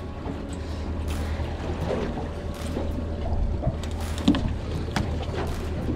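Steady low rumble and water noise around a drifting small aluminium fishing boat, with a couple of sharp knocks about four and five seconds in.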